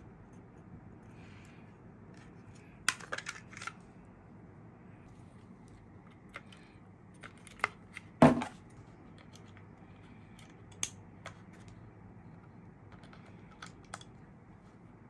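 Hands handling a small plastic battery-powered gadget: scattered clicks and taps of its case and battery compartment as a battery is fitted, with a short cluster of clicks about three seconds in and one louder knock a little past the middle.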